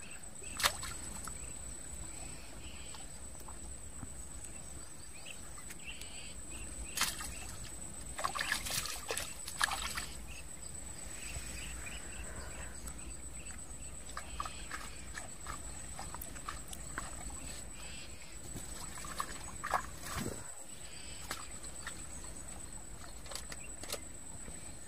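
Outdoor ambience beside a small pool: a steady thin high whine, with a few short splashes and clicks, a cluster of them about eight to ten seconds in and another near twenty seconds.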